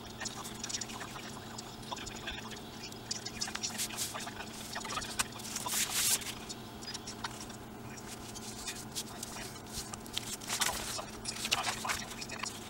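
Sheets of paper rustling, crackling and sliding on a wooden bench as they are folded and creased by hand with a wooden bone folder. Louder rustles come about halfway through and again near the end.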